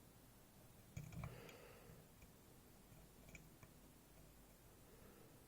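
Faint clicks of a lock pick working the pins inside a 7-pin Goal Z pin-tumbler cylinder, a few small clicks about a second in and again past three seconds, otherwise near silence.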